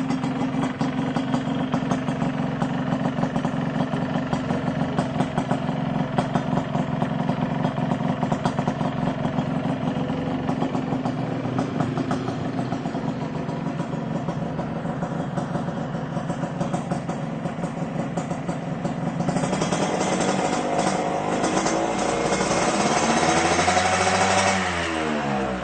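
Yamaha RX King two-stroke single-cylinder motorcycle engine, breathing through a CMS aftermarket exhaust, running at a steady idle, then revved up for several seconds near the end and falling back as the throttle is released.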